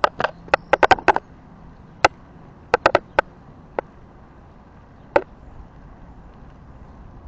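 Bicycle rolling along with a steady low hiss, rattling and clicking sharply and irregularly, with a quick cluster of clicks at the start and a few scattered ones later.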